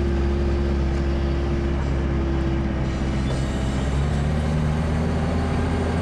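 All-terrain vehicle's engine running with a steady low drone as the vehicle creeps forward over snow, heard from inside the cab.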